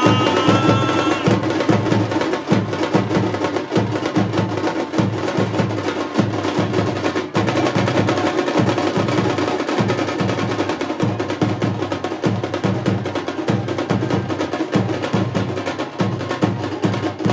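Several large dhol drums are played with sticks in a steady, driving beat: deep booming strokes under a busy, clattering top rhythm.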